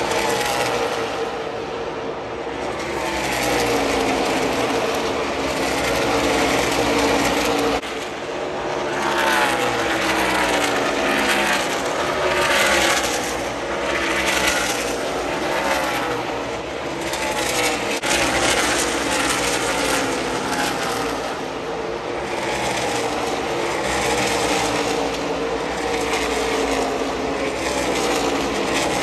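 NASCAR stock cars' V8 engines at racing speed, a loud continuous drone as one car after another passes, each engine note falling in pitch as it goes by.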